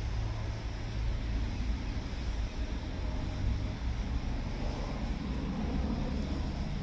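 Steady outdoor background noise: a fluctuating low rumble under a faint hiss, with no distinct events.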